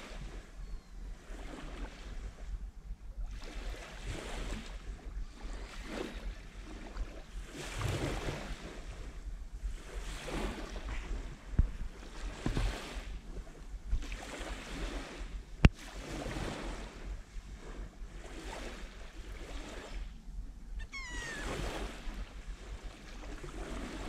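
Small sea waves lapping and washing onto a shelly sand beach, swelling and fading every couple of seconds, with a low wind rumble on the microphone. A gull calls briefly near the end, and a single sharp click sounds just past the middle.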